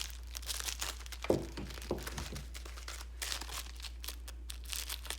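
A small package being unwrapped by hand: packaging crinkling and tearing in irregular crackles, with a knock about a second in.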